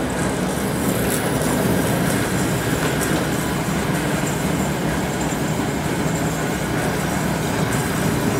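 Grob vertical band saw running at a steady level, its blade, wheels and motor making an even mechanical whir with a few faint ticks. It runs smoothly, a sign that it is in good working order.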